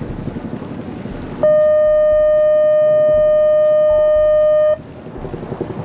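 A tour boat's horn sounds one steady blast of about three seconds, starting about a second and a half in. Before and after it, the boat's engine runs under wind noise on the microphone.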